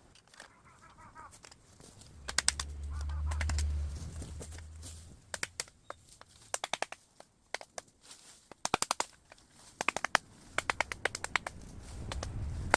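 Bamboo being worked by hand: quick clusters of sharp clacks and cracks, several times, as culms and branches are struck, snapped or knocked together, with a low rumble between about two and five seconds in.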